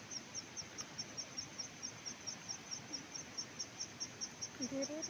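Insect chirping steadily in farmland: a short, high-pitched chirp repeated about three times a second.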